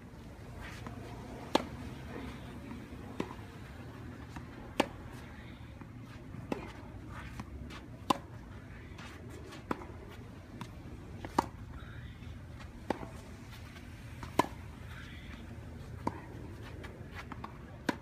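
A tennis rally: sharp pops of the ball coming off racket strings about every one and a half seconds, louder and softer strikes taking turns as the two players return the ball, over a low steady rumble.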